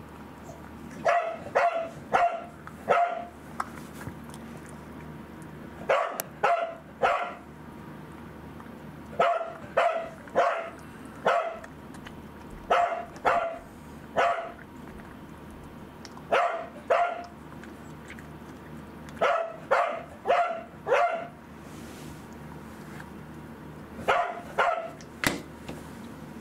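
A dog barking in short runs of three or four sharp barks, with a new run every three seconds or so.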